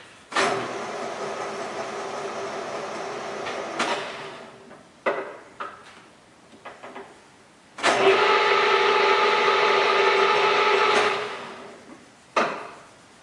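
LeBlond 13" x 32" engine and turret lathe's 3 hp spindle drive started and running steadily for about three and a half seconds, then quickly braked to a stop with a clunk of the control lever. A few seconds later it is started again, louder this time, runs for about three seconds and is braked to a stop again, followed by another clunk.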